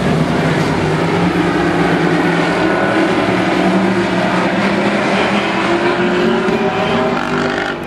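A pack of demo race cars running together at speed around an oval track, many engines blending into one loud, steady drone.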